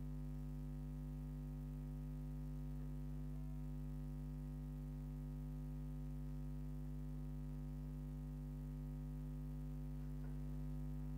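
A steady electrical hum, a stack of constant low tones that never changes, with faint scratches of a marker drawing on a whiteboard.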